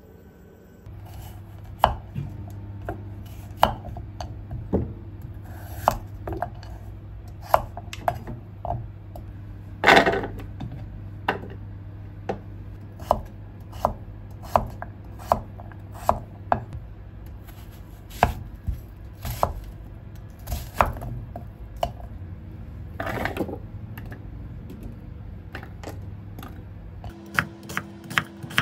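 Kitchen knife cutting carrot and onion on a wooden cutting board: sharp single strokes about once a second, with two heavier knocks along the way. A steady low hum runs underneath.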